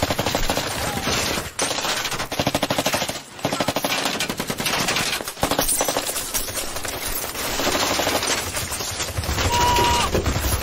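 Rapid automatic gunfire in long runs of shots, broken by a few brief pauses.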